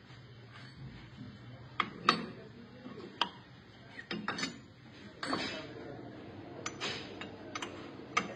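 Sharp metallic clicks and clunks of a motorcycle cylinder block being handled and set on a boring machine's table, then a piston being pushed into its bore, over a low steady hum.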